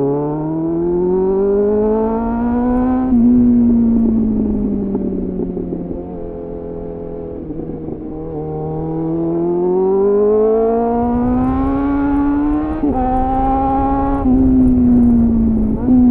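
2001 Suzuki GSF 600 Bandit's inline-four engine through a loud aftermarket slip-on exhaust fitted with a homemade dB killer. The revs climb for about three seconds, fall away on the closed throttle, climb again with a short break about thirteen seconds in, then fall once more near the end.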